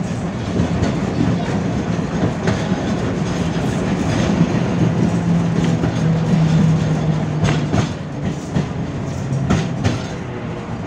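A 71-605 (KTM-5) tram running along the line: a steady rumble of wheels on rail with a low hum from the drive, and a few sharp clacks as the wheels pass over rail joints.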